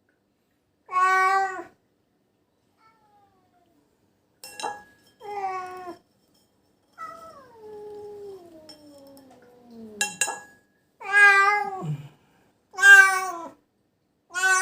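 Domestic cat crying out in distress with about six loud meows and, in the middle, one long drawn-out moan that falls in pitch; the cat is in pain after being bitten by a venomous animal.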